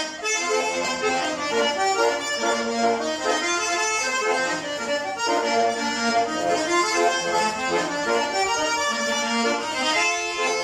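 Button accordion playing an instrumental merengue passage, a quick run of changing notes.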